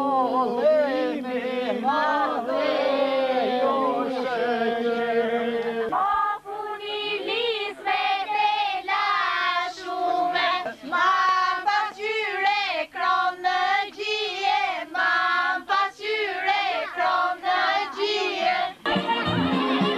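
A group of women singing a traditional Albanian wedding song together, with wavering, ornamented melody lines and a fresh phrase starting about six seconds in. Instrumental folk music comes in near the end.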